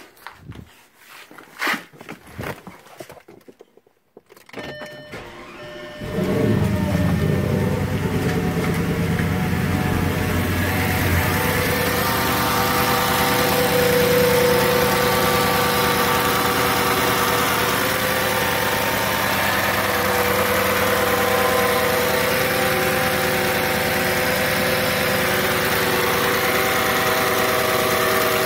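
Clicks and knocks from inside the car and a brief electronic tone, then about six seconds in the 5.2-litre V10 of a 2007 Audi S8 starts cold after a month unused and settles into a steady idle. A high-pitched noise from the secondary air pump runs over the engine, along with the normal injector noise.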